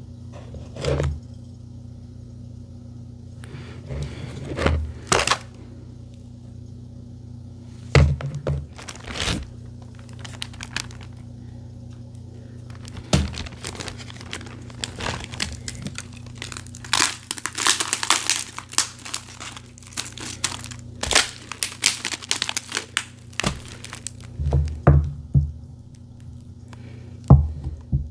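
Plastic being handled: a food container's lid knocked and worked, and a zip-top plastic bag of ice crinkled over it, with scattered knocks and a long dense stretch of crinkling about two-thirds of the way through.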